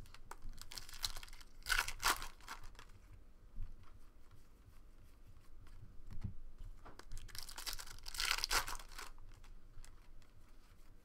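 Trading-card pack wrapper being torn open and crinkled by hand, in two bouts of ripping and crackling: one about a second in and one about eight seconds in.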